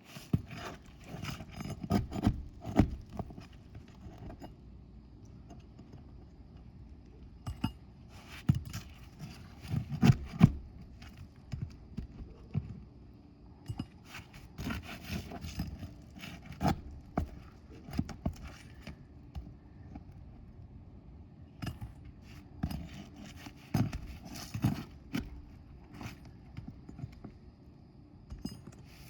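Irregular scrapes, clicks and knocks of hand tools prying at asphalt roof shingles to lift out a wind-damaged shingle. The loudest knocks come about ten seconds in.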